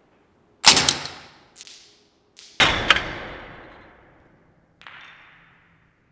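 A demonstration dart launcher firing at a hanging target: two sharp bangs about two seconds apart, each dying away over about a second, with fainter knocks between and after them.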